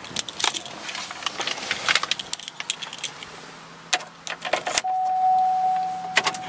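Keys jangling and clicking as a key goes into the ignition of a 2003 Chevrolet Monte Carlo SS; nearly five seconds in, the car's 3.8-litre V6 starts and runs steadily, with a constant high tone over it.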